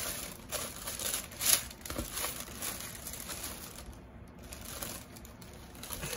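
Grey tissue paper crinkling and rustling in uneven bursts as hands pull it apart over shoes in a shoebox. The loudest crackle comes about a second and a half in.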